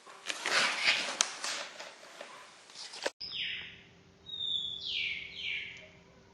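Rustling noise with a few clicks, then after an abrupt cut several short, high, bird-like chirps that fall in pitch.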